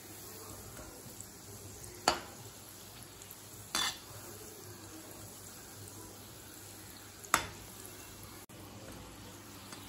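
Wheat flour gulab jamun balls deep-frying in oil in a metal kadai, with a steady soft sizzle. A steel slotted spoon clinks against the pan three times as the balls are turned.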